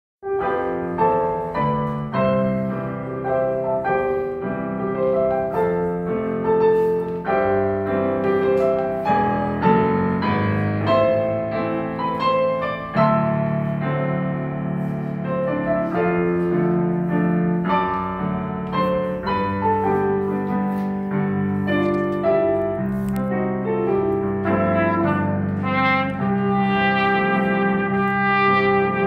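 Piano playing the chordal introduction to a gospel medley. A trumpet joins in near the end.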